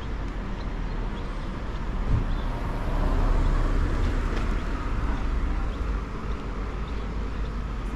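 A car passing on a city street: its engine and tyre noise swell a few seconds in, then fade.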